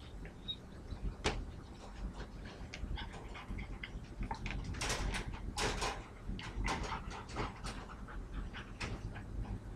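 Metal wire dog crate rattling and clinking as two puppies, a yellow Lab inside and a golden retriever outside, chew and paw at its door. The clatter comes in irregular clusters, busiest about halfway through.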